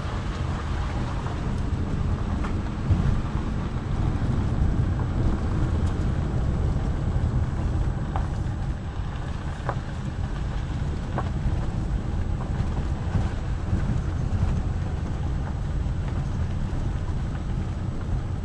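Car driving on a gravel mountain road, heard from inside the cabin: a steady low rumble of engine and tyres on gravel, with some wind noise on the microphone and a few faint ticks near the middle.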